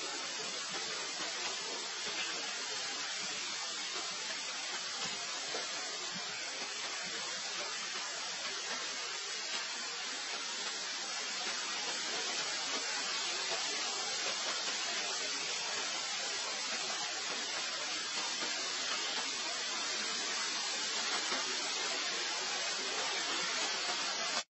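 A steady, even hiss that does not change, brightest in the upper range, with no distinct sounds standing out of it.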